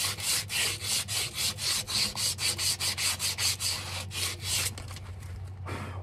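Abrasive cloth strip pulled back and forth around a rock picker's steel wheel spindle, shoe-shining the worn seal journal, in quick rasping strokes about four a second that stop about five seconds in.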